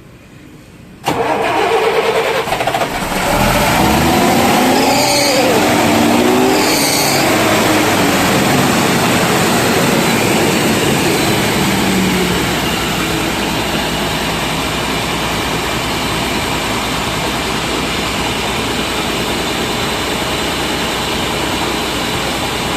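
Mercedes-Benz bus diesel engine cranked and started about a second in, after air was bled from its fuel line; it revs up and down for several seconds, then settles to a steady idle.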